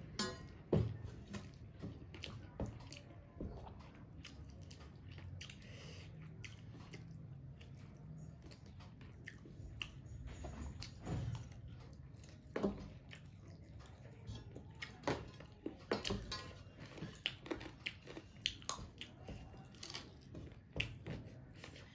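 A person chewing and smacking, eating soft rice and curry by hand. Many short, irregular sharp clicks run through it, more frequent in the second half.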